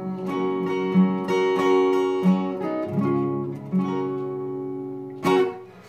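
Acoustic guitar playing the closing chords of a slow song, the last chord ringing and fading away, with a sharp knock about five seconds in.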